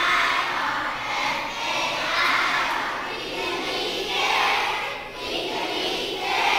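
A group of young children singing together, many voices in unison swelling in phrases about every two seconds.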